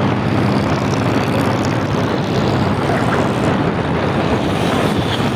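Steady vehicle engine and road noise, with a low hum that fades in the first second.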